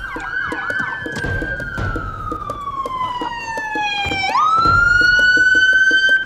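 Police car siren: a few quick yelps, then a long wail that falls slowly in pitch, sweeps quickly back up and holds high, growing louder as it comes in.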